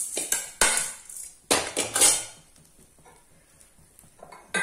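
A perforated steel skimmer scraping and knocking against an aluminium kadai as dry-roasted rock salt is tipped out of it: a few sharp metallic clinks in the first two seconds, then quiet with a couple of light taps near the end.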